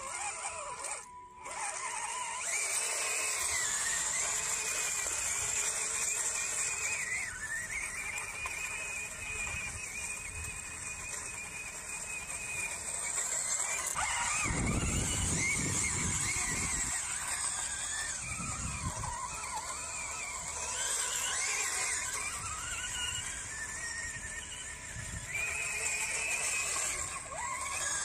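Small electric drive motor and gearbox of a Bwine Q111 RC tracked crawler whining as it drives, the pitch rising and falling with the throttle. A low rumble joins in for a couple of seconds about halfway through.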